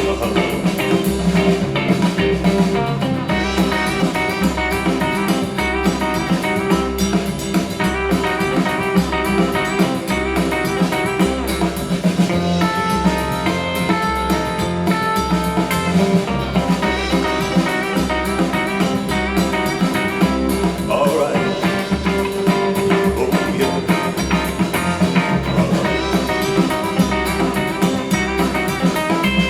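Instrumental stretch of a song, with guitar over a steady drum beat and no singing, played back through Grundig Minerva Mini-Box MB 5030 HiFi loudspeakers.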